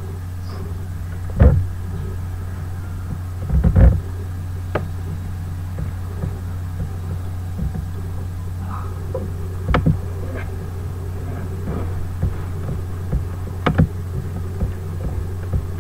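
Steady low electrical hum, with a few short knocks and clicks scattered through it.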